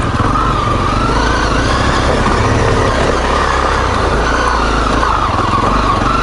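Single-cylinder four-stroke dual-sport motorcycle engine running under load at low speed over rocky trail, its note rising and falling a little with the throttle.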